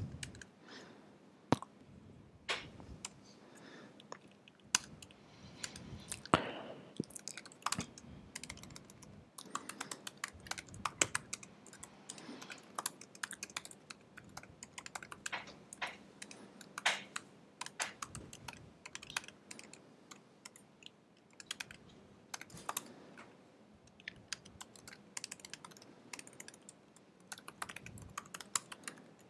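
Typing on a computer keyboard: irregular runs of keystrokes separated by short pauses, sparse for the first few seconds, then busier.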